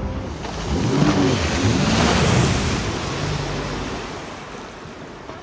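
Sea-Doo personal watercraft running hard in a tight turn, its engine pitch rising and falling, with the rush of its spray. Loudest a second or two in, then dying away as the craft slows.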